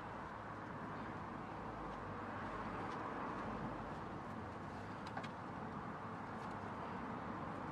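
Steady outdoor background noise with a low hum, broken by a few faint ticks.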